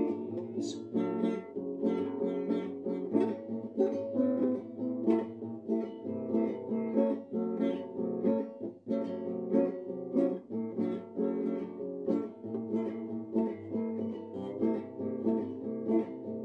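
Instrumental break of a sertanejo pagode song: quick plucked acoustic strings over a steady bass line.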